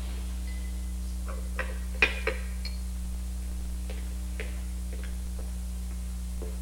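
Cutlery and glassware clinking lightly on plates at a dinner table: about a dozen scattered clinks, the loudest about two seconds in, over a steady low hum.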